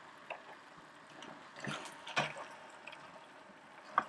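Vegetable broth ladled into a pan of risotto rice and artichokes, with soft pouring and dripping of liquid, then stirring in the pan; a sharp knock near the end.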